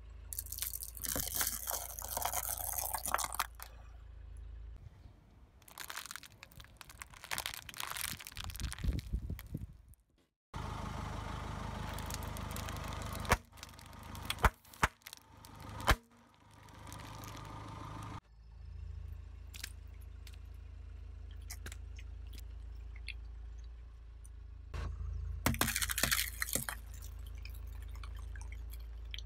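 A car tyre slowly rolling over and crushing things in a run of short clips: dry pasta nests crackling and crunching, sealed snack packets bursting with several sharp pops, and eggs cracking, with a low rumble underneath.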